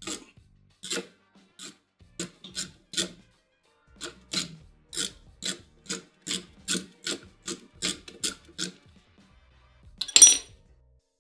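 Ratcheting wrench clicking in short strokes, about two to three a second, as it works the nut off the bottom of a golf cart's front spindle bolt. A louder metallic clink comes near the end.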